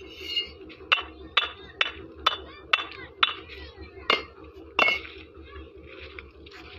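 Fired clay bricks knocked together: a hand-held brick struck against bricks in a stack, about eight sharp clinks over some four seconds, the last two longer and ringing.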